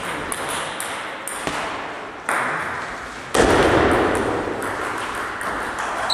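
Table tennis rally: the celluloid ball clicks sharply off the bats and the table every few tenths of a second. Two heavier knocks about two and a half and three and a half seconds in ring on in the hall's echo.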